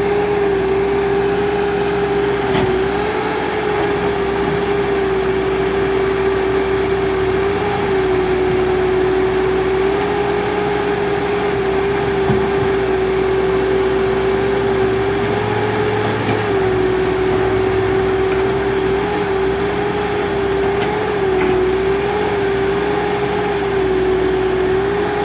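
Case 580 Super R backhoe loader's diesel engine running at working speed, with a strong steady whine that dips briefly in pitch several times.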